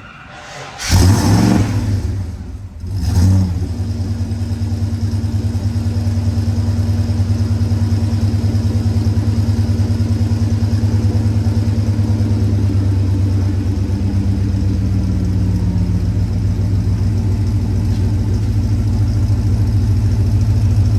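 Holden VK Commodore V8 starting up about a second in, revving sharply twice, then settling into a steady idle. It runs through a newly fitted 2.5-inch catback exhaust with a catalytic converter, and the exhaust note is much quieter than with no exhaust.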